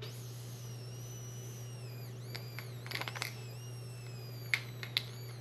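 A faint, thin whistle of air drawn through a vape cartridge's mouthpiece, falling slowly in pitch over the first two to three seconds. It is followed by a few small clicks and pops, over a steady low hum.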